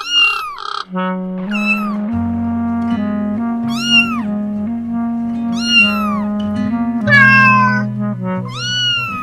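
A series of cat meows, about six, rising and falling in pitch, the last one long and drawn out, over background music with steady held notes.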